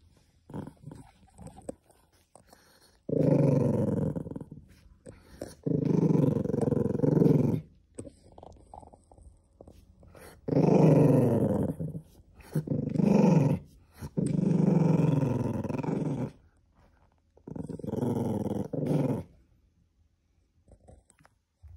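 Cream poodle growling to guard something from a person's hand: about six long, wavering growls of one to two seconds each, with short pauses between them.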